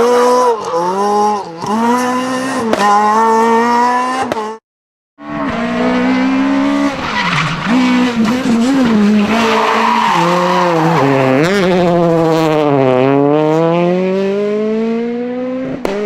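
Rally car engine revving hard under load, its pitch repeatedly dropping and climbing again with gear changes and throttle lifts. It cuts out completely for about half a second roughly a third of the way in. Near the end it settles into one long acceleration, the pitch climbing steadily for about three seconds.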